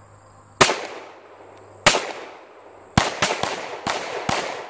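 CZ Shadow 2 pistol firing seven shots: two single shots about a second apart, then a quick string of five, each a sharp crack with a short echoing tail.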